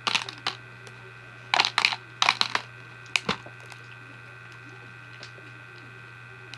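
Plastic bracelet beads clicking against each other as they are mixed into slime, in four short bursts of clicks over the first few seconds.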